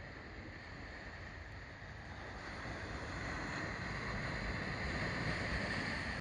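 Coastal surf and wind noise on the microphone, a steady rushing haze that grows louder over the second half and cuts off suddenly.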